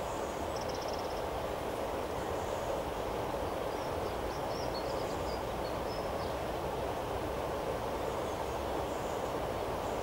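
A steady, even rushing background noise, with a few faint high bird chirps about half a second in and again around four to six seconds in.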